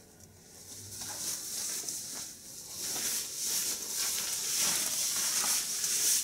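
Textile motorcycle jacket rustling and swishing as it is lifted over the head and pulled on. The rustling starts about a second in and grows louder.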